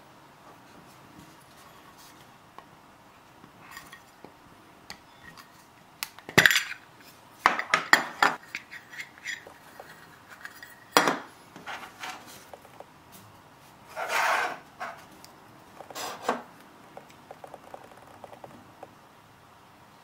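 Hands opening a small round lidded case and handling the keycap inside: a scattered series of sharp clicks, clacks and taps of hard parts knocking together. The loudest clacks come about six to eight seconds in and again around eleven seconds, with a short rub near fourteen seconds.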